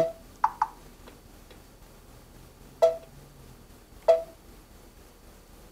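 Stylus tapping on an embroidery machine's touchscreen: two light taps about half a second in, then two sharper taps, each with a very short beep, about a second and a quarter apart, as the screen takes each touch.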